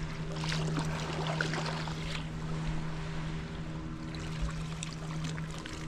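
Kayak paddle strokes: a carbon Greenland paddle splashing and dripping in sea water, with a few splashes in the first couple of seconds. A steady low hum runs underneath.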